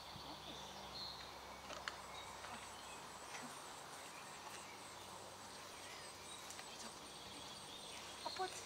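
Faint outdoor ambience: a low steady hiss with a few short, high bird chirps now and then.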